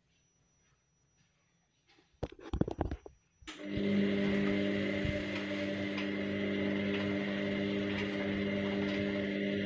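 Washing machine: quiet at first, then a quick series of clicks and knocks about two seconds in, after which its motor starts and runs with a steady humming drone.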